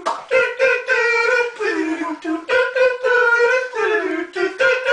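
Male voices singing a wordless tune, holding steady notes with short breaks between them.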